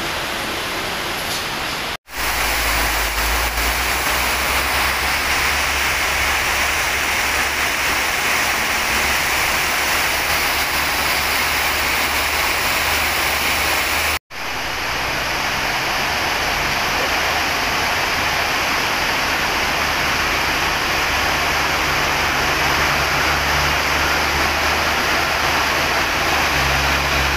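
Heavy tropical rain pouring steadily, a dense even hiss, with a low rumble underneath. The sound cuts out for an instant twice.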